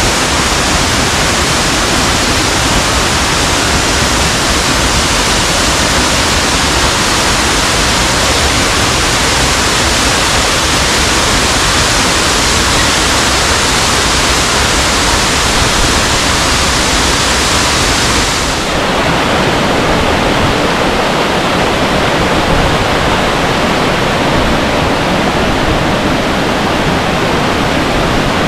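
Waterfall, a loud steady rush of falling water. About two-thirds of the way through, it abruptly turns duller, losing its highest hiss.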